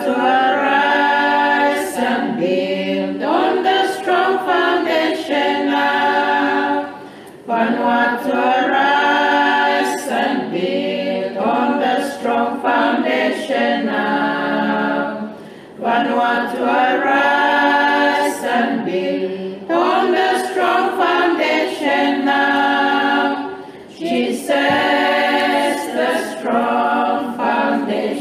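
A cappella choir singing in long phrases, with a brief break about every eight seconds.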